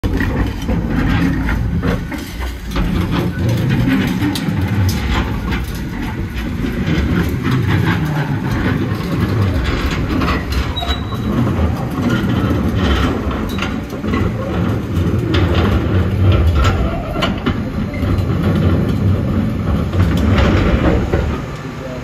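Hook-lift skip lorry's diesel engine running under load to work its hydraulic arm while a loaded steel roll-off skip is hauled along the road, giving a continuous low rumble with irregular metal clanks and scraping. The sound drops away shortly before the end.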